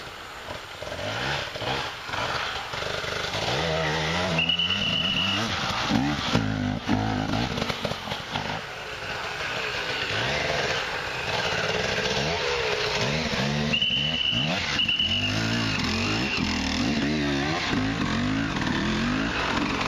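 Off-road enduro motorcycle engine revving up and down over and over as the bike climbs a rough dirt trail under hard throttle. A few brief high steady tones cut in, once early and twice in quick succession past the middle.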